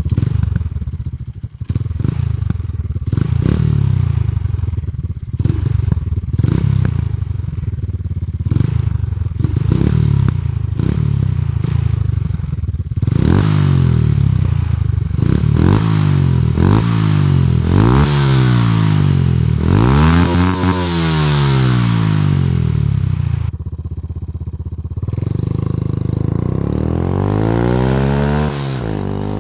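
Kymco K-Pipe 125's single-cylinder four-stroke engine through a long Akrapovič aftermarket exhaust, on a modified bike. For the first dozen seconds it is blipped in short revs, about one every second, with sharp pops and crackles. It then revs in long sweeps up and down, and near the end climbs steadily in pitch.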